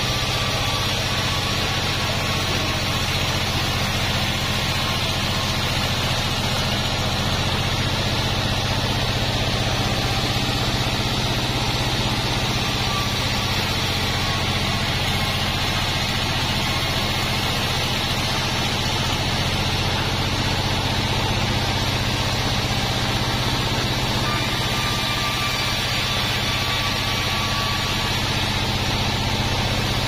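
Large 36-inch band sawmill running steadily as its blade rips through a wadang log, a constant machine drone with no breaks.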